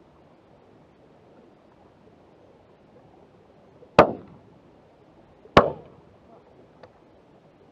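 Two shotgun shots about a second and a half apart, each a sharp bang with a short echoing tail.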